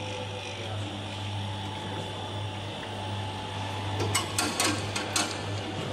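Tinguely kinetic machine sculpture built from racing-sidecar parts running: a steady electric-motor hum, with several sharp clicks and knocks from its moving metal parts about four to five seconds in.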